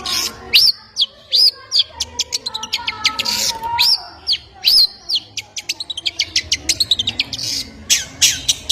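A small bird calling: rapid, sharp high chirps with several arched whistled notes that rise and fall, in clusters about a second in and again around four to five seconds in.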